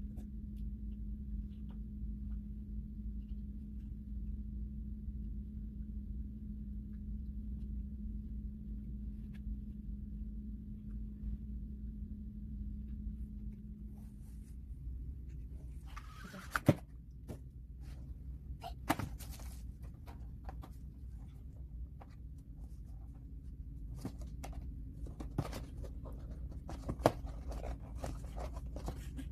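A steady low hum, then from about halfway the rustle and clatter of a cardboard tablet box being handled, with three sharp knocks.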